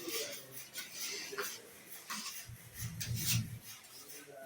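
Irregular scraping and rubbing strokes, with a few low thumps about two and a half to three and a half seconds in.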